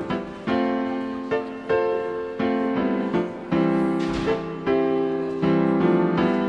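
Background piano music, a slow run of single notes and chords, each struck note ringing out and fading before the next.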